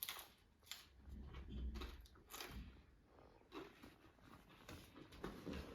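A person chewing and biting into bolani, a leek-filled flatbread, with faint, irregular crunching and mouth clicks.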